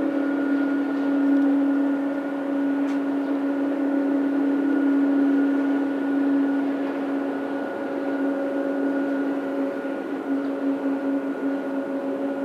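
Steady hum of jet aircraft at an airport: a low drone with a fainter higher whine above it, easing slightly in the second half.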